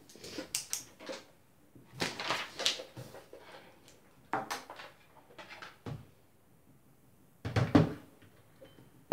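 Several short spells of rustling and knocking from objects being handled at a wooden table, then a louder, heavier thump about seven and a half seconds in as a PlayStation 3 console is set down on the tabletop.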